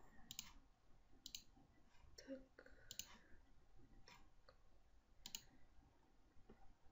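Faint computer mouse clicks, about half a dozen spread irregularly, some in quick pairs, over near-silent room tone.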